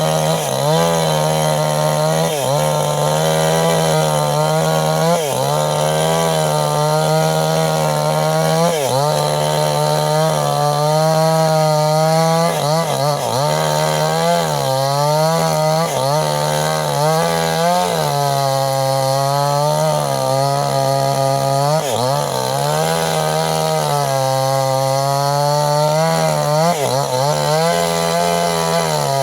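Mini chainsaw running under load, sawing young teak wood into a beam. Its engine note holds steady, then dips briefly every few seconds as the chain bogs in the cut and recovers.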